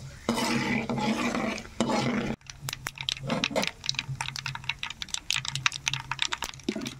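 Tempering of mustard seeds, dal, cumin and dried red chillies frying in hot oil in a metal kadai: a steady sizzle as a spoon stirs them, then from about two and a half seconds in, a dense run of sharp crackles as the mustard seeds pop.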